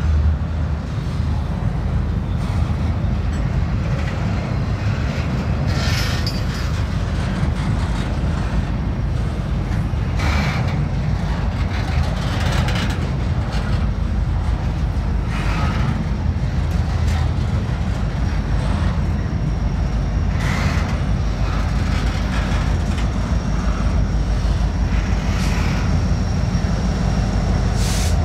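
Freight train rolling past: a steady low rumble of the cars with a clank every two to three seconds. A thin, high, steady squeal joins in about two-thirds of the way through.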